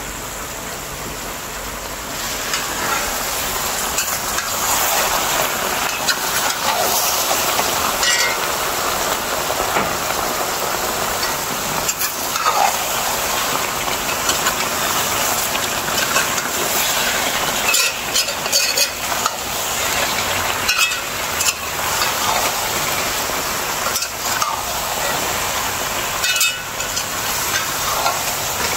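Chicken pieces sizzling and frying in hot oil in a large aluminium pot, stirred with a metal ladle that scrapes and knocks against the pot every few seconds. The sizzling grows louder about two seconds in.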